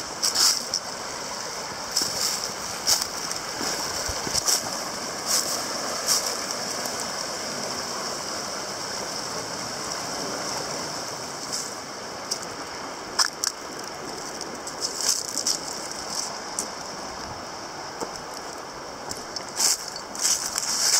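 Footsteps crunching through dry fallen leaves in irregular clusters, over the steady rush of a shallow creek running over bedrock. The water is most prominent in the middle, where the crunching thins out.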